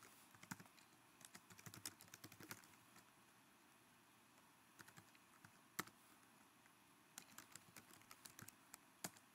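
Faint computer keyboard typing: keystrokes in short bursts with pauses between, one sharper keystroke about six seconds in.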